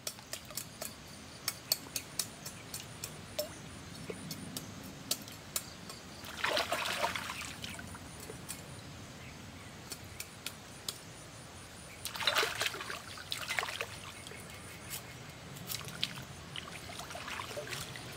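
Pond water splashing and sloshing as fish are rinsed and cleaned by hand at the water's edge, with two louder bouts of splashing and frequent short clicks.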